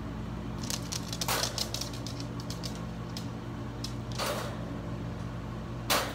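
Metal wire dog crate rattling and clicking as it is handled: a string of sharp metallic clicks and rattles, loudest about a second in and again just before the end, over a steady low hum.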